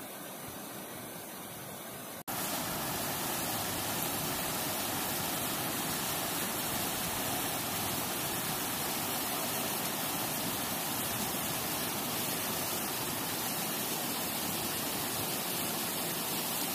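Creek water rushing over rocks and small cascades: a steady hiss that jumps louder and fuller about two seconds in, then holds.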